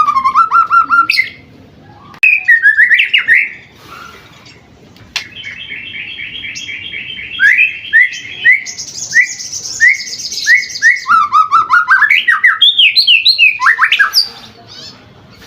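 A young white-rumped shama singing. Two short phrases come in the first few seconds; then, from about five seconds in until near the end, one long unbroken run of fast repeated notes, down-slurred whistles and a high buzzy trill. This is a seven-month-old bird singing its full range of learned song.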